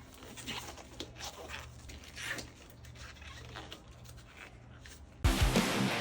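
Faint scattered clicks and rustles over a low pulsing hum. Loud electric-guitar music cuts in suddenly near the end.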